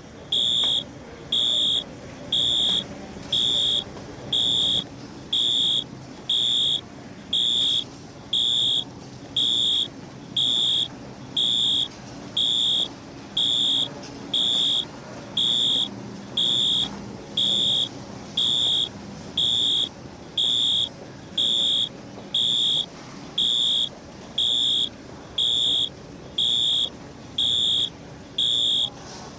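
Fire alarm sounding: a loud, high-pitched electronic beep about half a second long, repeating steadily about once a second.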